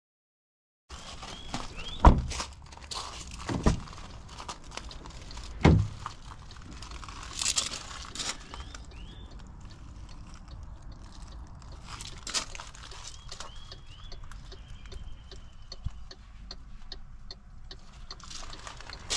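Three heavy thumps in the first few seconds, then lighter clicks and taps, with short high chirps scattered throughout.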